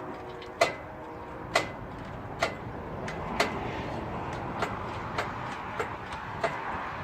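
A series of about eight sharp clicks, unevenly spaced at roughly one a second, each with a brief ring, over a steady background hiss.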